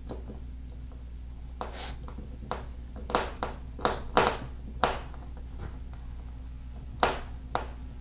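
Hand screwdriver turning a screw through a plastic mounting plate into a wall anchor: a string of short, sharp creaks and clicks as the screw bites, bunched in the middle, with two more near the end.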